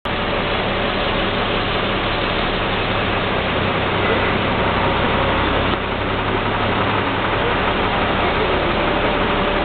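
Bus engine running, heard from inside the bus as a steady low hum under constant cabin and road noise.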